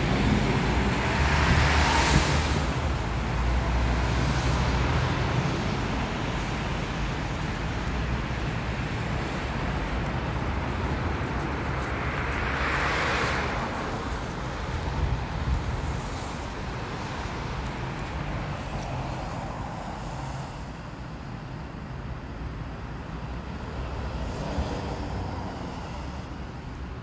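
Street traffic going by on a wet road, with a car passing close about two seconds in and another around thirteen seconds, over wind rumbling on the phone's microphone.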